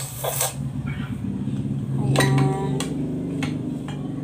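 A spoon clinking against ceramic plates while rice is served: a few separate clinks, the one about two seconds in ringing briefly, over a steady low hum.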